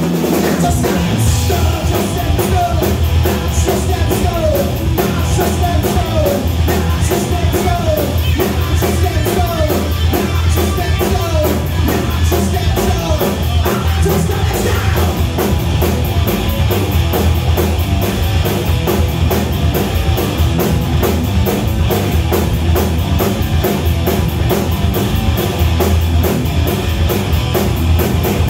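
Live rock band playing loud: electric guitar, bass guitar and drum kit together. A short guitar figure repeats about once a second through the first dozen seconds.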